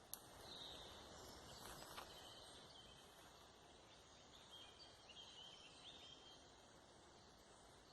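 Near silence: faint forest ambience with distant birds chirping now and then, a sharp click just after the start and a short rustle about two seconds in.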